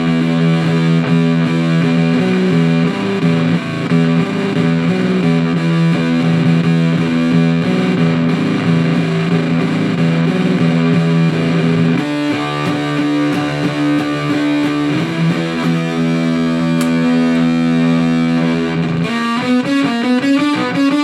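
Electric guitar on its neck pickup with the tone rolled down, played through an Old Blood Noise Endeavors Haunt Fuzz with everything turned up: long sustained fuzzed notes and chords. The chord changes about twelve seconds in, and near the end the notes bend and waver.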